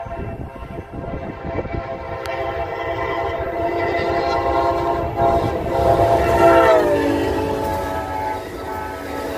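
Amtrak diesel passenger locomotive sounding its air horn in one long chord as the train approaches, growing louder; about seven seconds in the chord drops in pitch as the locomotive passes. Underneath, the steady rumble of the train's wheels on the rails carries on as the bi-level passenger cars go by.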